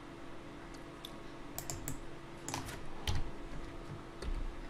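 A handful of separate computer keyboard keystrokes, Blender shortcut keys pressed one at a time, over a faint steady hum.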